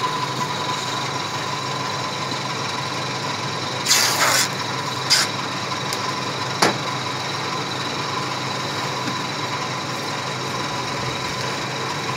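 Clear plastic wrapping sheet rustling and crinkling in two bursts about four and five seconds in, followed by a single sharp click, over a steady mechanical hum with a thin high whine.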